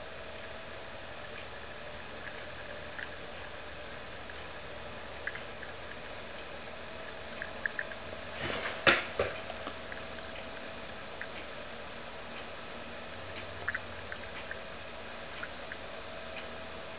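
Faint fizzing and scattered tiny pops of oxygen bubbles from silver crystals reacting in 3% hydrogen peroxide in a test tube: a catalytic reaction that plain silver does not give, the sign of palladium co-plated in the silver. A louder cluster of clicks comes about nine seconds in, over a faint steady hum.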